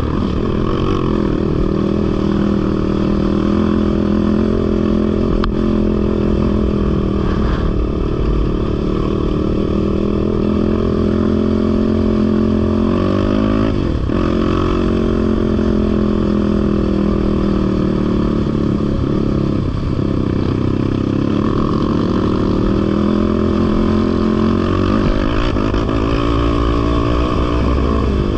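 Off-road vehicle engine running continuously under way, its pitch dipping and climbing again a few times as the throttle eases and opens, over a heavy low rumble.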